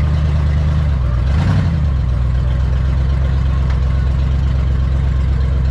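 Demolition derby car's engine idling steadily close under the hood-mounted microphone, with one brief louder burst of noise about a second and a half in.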